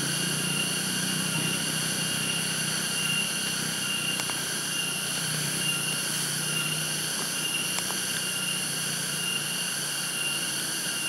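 Steady chorus of forest insects, several unbroken high-pitched tones layered together. Under it a low hum fades out about halfway through, and there are a couple of faint clicks.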